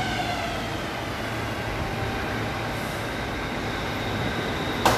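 Bangkok MRT Blue Line metro train pulling to a stop at a platform. The falling whine of its traction motors dies away in the first half second, leaving a steady hum, and a single sharp clunk sounds near the end.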